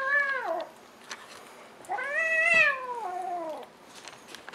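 Kitten meowing twice. A meow trails off and falls in pitch in the first half-second. A louder meow of about a second and a half starts about two seconds in, rising and then falling in pitch.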